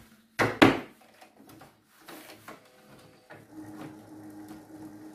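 A stack of printer paper and the plastic input tray of an HP Envy 6032e inkjet printer being handled as paper is loaded. Two sharp knocks come about half a second in, then light scraping of paper against the tray, and a faint steady hum from about three and a half seconds.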